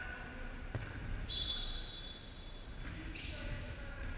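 Futsal play on a wooden sports-hall floor: a ball knock about a second in, then a high squeak lasting about a second, with distant shouts from players.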